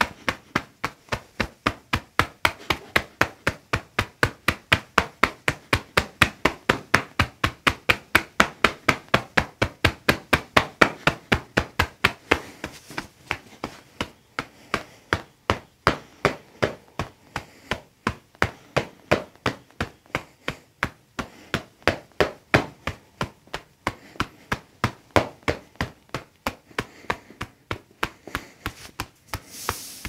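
A hand rapidly striking a person's back in percussive massage (tapotement), about four strikes a second. The strikes are softer from about halfway on.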